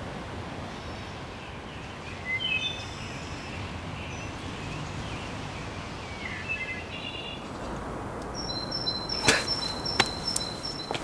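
Outdoor ambience: a steady hiss of background noise with birds chirping now and then. From about eight seconds in, a short high two-note call repeats evenly, and a few sharp clicks come near the end.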